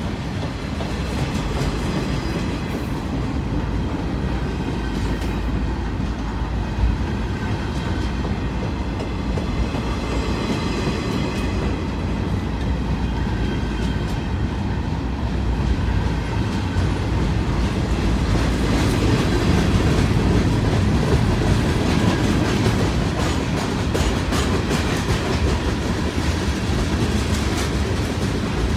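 Freight train cars rolling past close by: a continuous rumble and clatter of steel wheels on the rails, growing a little louder about two-thirds of the way through.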